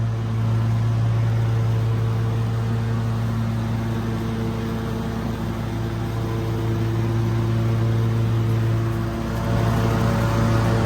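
Riding lawn mower engine running steadily under load while mowing grass, its pitch holding even with slight swells in loudness.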